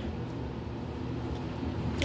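A steady low hum with a faint even hiss: background room noise in a pause between sentences.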